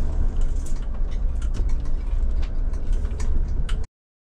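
Low rumble of a Mercedes van heard from inside its cabin, with scattered clicks and rattles. It cuts off suddenly near the end.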